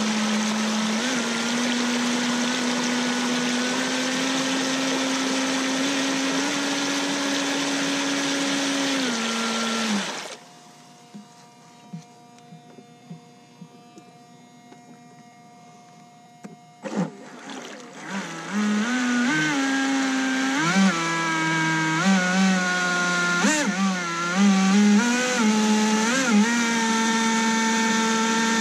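RC jet boat's electric motor and jet pump running in the water, a steady whine that rises slightly and then stops about ten seconds in. After a quiet spell and a click, a second jet boat's motor starts, revving up and down in short blips before holding a steady whine as its pump throws out a jet of water.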